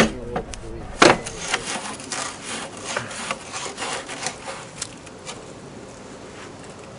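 Steel core barrel being worked in the drilling rig's clamp: a sharp metallic knock about a second in, then a run of irregular scrapes and knocks that die away about five seconds in.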